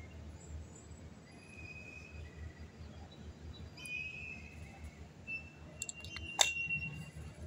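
Parts of a small air-conditioner blower motor being pressed together by hand, with a few light clicks and one sharp click about six seconds in as they seat.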